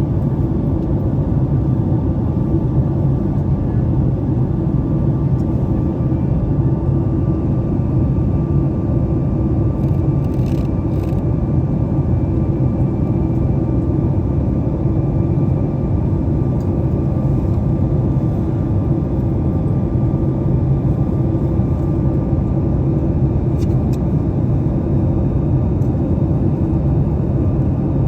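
Steady cabin noise of a Boeing 737-8 MAX climbing after takeoff: a constant drone of its CFM LEAP-1B engines and rushing air, with a faint steady whine and a few light clicks about ten seconds in and near the end.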